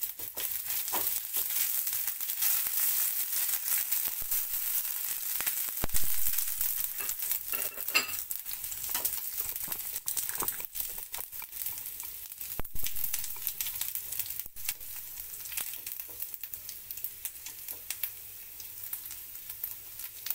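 Whole spices, garlic and ginger sizzling in hot ghee for a tadka (tempering), stirred with a silicone spatula. A steady hiss is dotted with small pops and a few sharper clicks, and the sizzle slowly dies down.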